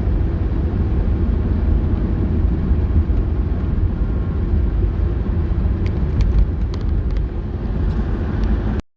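Steady low rumble of a car driving, with a few light clicks near the end; the sound cuts off abruptly.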